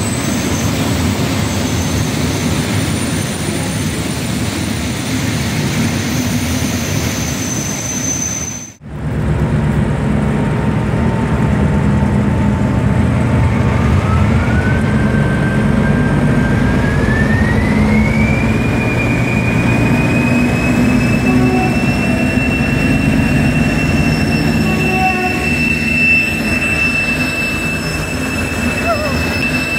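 Freight wagons rolling past on the rails. After a cut about nine seconds in, an ST44 diesel locomotive with its two-stroke V12 diesel engine and a TEM2 diesel shunter haul a freight train past, the engines running under load with a deep rumble and a high whine that rises in pitch and then holds steady.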